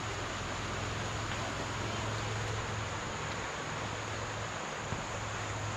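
Steady outdoor background noise: an even hiss with a low hum underneath, with no distinct events.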